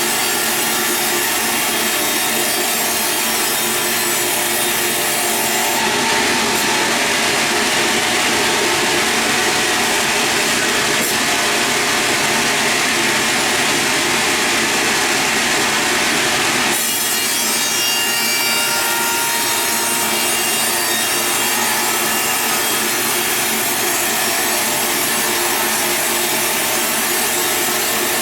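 Sawmill saw cutting through a log, a steady continuous saw noise. From about six seconds in the sound turns brighter, harsher and slightly louder, then eases back about eleven seconds later.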